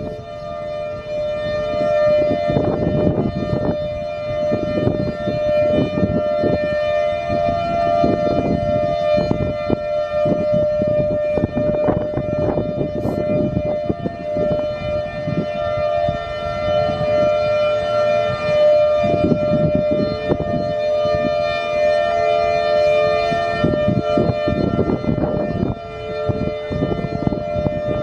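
Federal Signal Thunderbolt 1000 outdoor warning siren sounding its steady alert tone, echoing. It holds one pitch without the rise and fall of a turning horn, since the rotator appears to be broken. Irregular low rumbling noise comes and goes beneath it.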